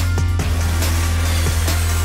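Background music with a heavy, steady bass line and a drum beat.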